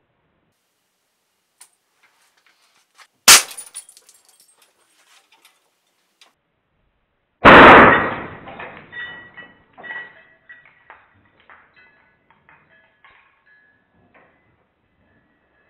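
A .177 PCP air rifle shooting a hanging metal wristwatch. A sharp crack comes about three seconds in, then a louder crash about halfway through, followed by metal pieces clinking, ringing and bouncing on a hard floor for several seconds.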